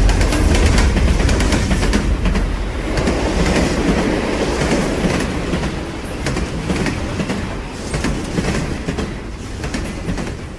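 Train running on rails: a low rumble with the clickety-clack of wheels over the rail joints, slowly fading away.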